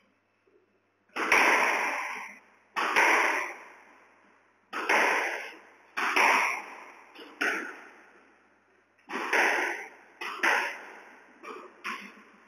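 Squash ball struck by a racket and hitting the court walls, a sharp crack roughly every second and a half, each one echoing in the enclosed court; near the end three hits come closer together.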